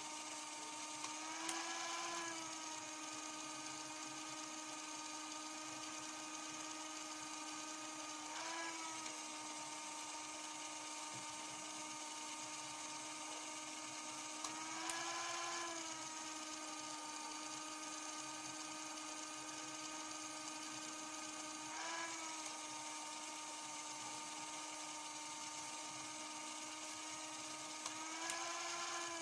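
CD Doctor disc repair machine's small electric motor spinning a disc against its buffing pads in repair mode: a steady motor whine whose pitch rises briefly, with a faint click, about every seven seconds.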